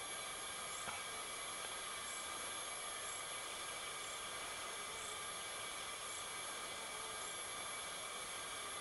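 Faint steady outdoor background hiss, with faint short high chirps about once a second.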